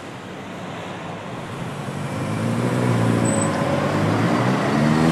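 Road traffic with a double-decker bus passing close, its engine hum building up from about two seconds in and its pitch rising near the end.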